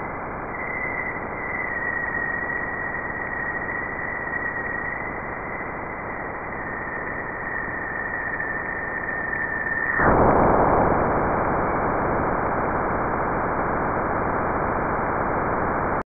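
Sonified plasma-wave data from NASA's Juno spacecraft's Waves instrument. A steady hiss carries a thin high tone, the upstream plasma oscillations in the solar wind, which drifts slightly lower. About ten seconds in, the tone stops and the hiss jumps abruptly louder and fuller: Juno crossing Jupiter's bow shock.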